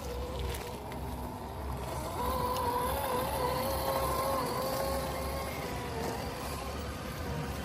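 Electric motor and gear whine of a 1/10-scale RC rock crawler crawling slowly over rocks, a steady pitch that gets louder from about two seconds in and eases off past the middle.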